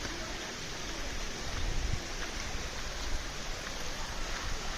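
Steady rush of running water from a hillside stream.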